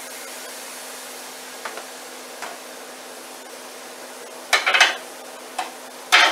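Marinated chicken pieces laid onto a hot stovetop grill pan: a steady sizzle with the clatter of the utensil on the pan. Short louder bursts come about four and a half and six seconds in as pieces go down.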